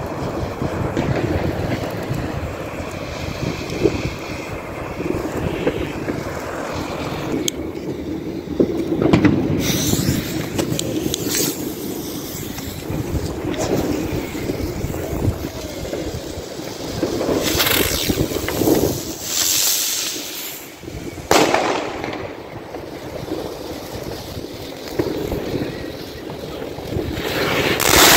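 Close-range New Year's fireworks and burning ground flares: a continuous rushing noise broken by half a dozen sudden loud hissing bursts. The loudest comes near the end, as a firework throws out a shower of white sparks.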